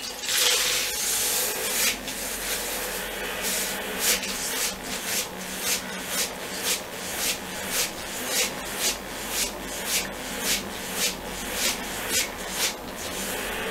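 StylePro makeup brush cleaner's motor spinning a blush brush in a glass bowl of soapy water, a steady whirring swish. From about four seconds in, the swishing pulses about twice a second.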